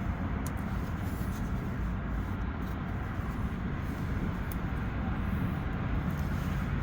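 Onan RV generator running with a steady, even low rumble.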